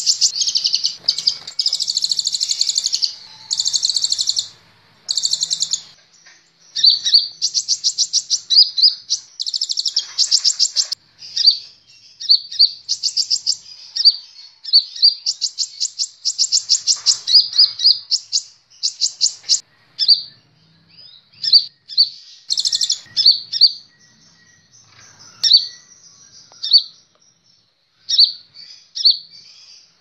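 Copper-throated sunbird (kolibri ninja) singing in rapid, high trills and chirps. The song is dense and unbroken for the first few seconds, then comes in shorter bursts with brief pauses.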